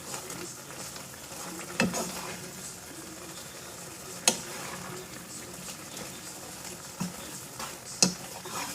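Spoon stirring thick ramen noodles in a pot, with a steady soft sizzle and a few sharp clinks of the spoon against the pot.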